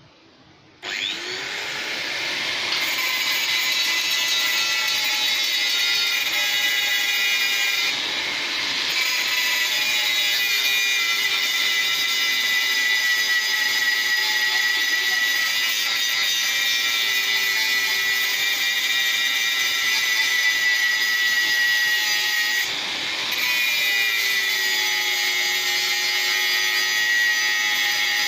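Handheld angle grinder spinning up about a second in, then cutting into a steel frame with a steady high whine. The whine sags briefly twice as the disc bites and recovers.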